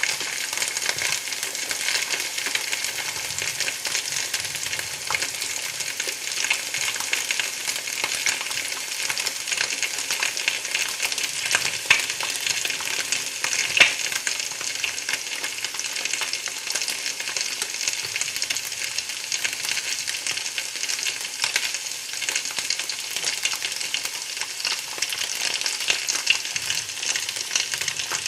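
Food frying in a pan: a steady sizzle with dense fine crackling, and two louder pops near the middle.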